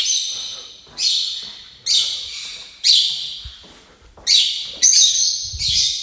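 Conures giving loud, harsh screeching calls, about one a second, each ringing on with a long echo down a hard-walled corridor.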